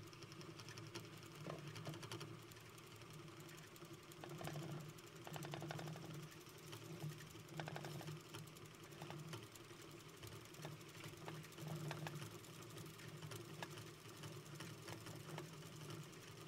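A small machine running faintly and steadily with a fast clicking rattle over a low hum.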